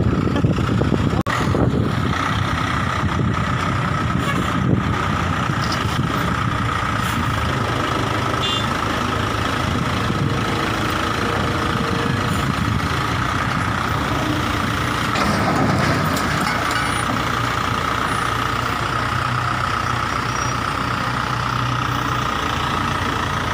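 Mobile crane's diesel engine running steadily under load, with a steady high whine over it, as the crane hoists an overturned lorry back onto its wheels.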